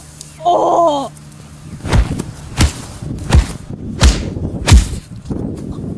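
Punches landing in a fistfight: five heavy thuds about two-thirds of a second apart, after a short cry near the start.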